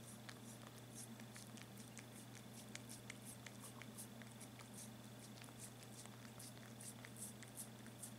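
A tabby-and-white kitten lapping at a glass plate with its tongue: soft, irregular wet clicks, several a second, over a faint steady hum.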